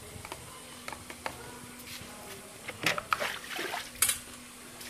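Spoon stirring a wet mixture with a few sharp clinks against the vessel around the third and fourth seconds, over a faint steady hum.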